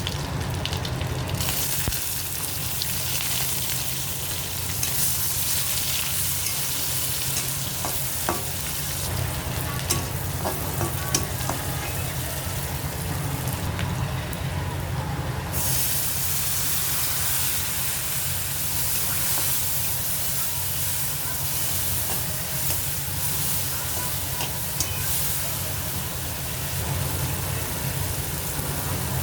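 Food sizzling in hot oil in a pan and being stirred, with scattered light clicks from the spatula; the sizzle thins out briefly twice, and a steady low hum runs under it.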